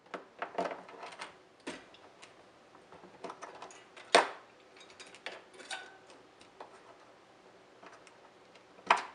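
Plastic cable connectors on the evaporator wiring being squeezed, unclipped and pulled apart by hand: a string of irregular clicks and small rattles, the sharpest about four seconds in and another just before the end.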